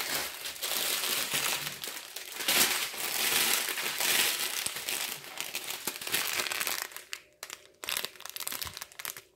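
Clear plastic bags of diamond-painting drills crinkling as they are handled. The crinkling is dense for about seven seconds, then thins to scattered crackles near the end.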